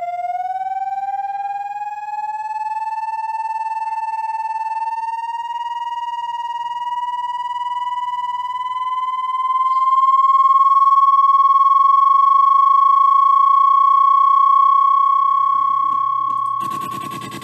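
Electronic rodent-repellent tone: a loud whistle-like tone with overtones that slides slowly upward in pitch for about ten seconds, then holds steady. Near the end it switches to a harsh, rapidly pulsing buzz.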